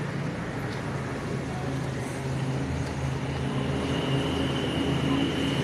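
Motor scooter engine running steadily with road and traffic noise while riding.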